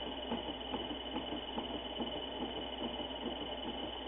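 Mini-lathe running under power while its tool turns a Teflon rod, peeling off a continuous plastic ribbon. There is a steady high whine and a low hum, with a regular tick about two or three times a second.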